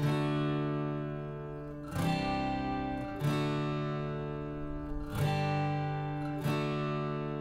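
Background music: an acoustic guitar strumming chords, each chord struck and left to ring and fade before the next, roughly every one to two seconds.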